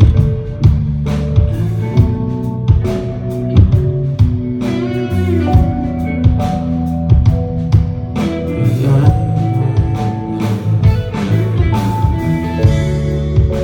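Live band playing an instrumental break with no vocals: a guitar carries the melody over bass and a drum kit keeping a steady beat.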